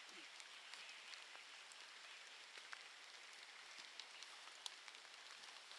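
Near silence: a faint steady hiss with scattered light ticks, one a little sharper near the end.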